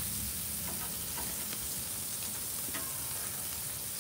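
Pork loin chops sizzling on the grate of a charcoal grill, with a few faint clicks of metal tongs as the chops are turned.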